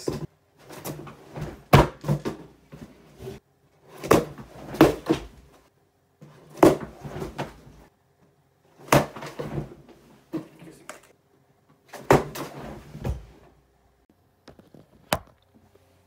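A cardboard box being knocked against a person's head over and over: a series of sharp thumps every second or two, with quieter rustling and handling noise between them.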